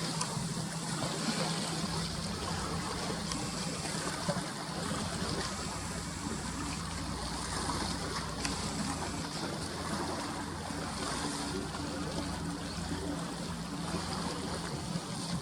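Sea water sloshing and lapping against the breakwater, with a steady low motor hum underneath.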